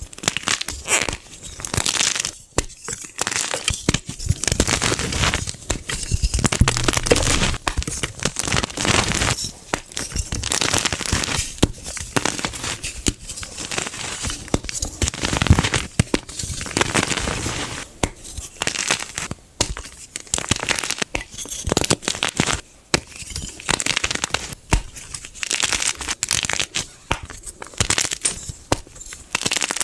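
Fresh gym chalk blocks being crushed, a dense crunching and crumbling that comes in repeated squeezes a second or two long, with short breaks between them.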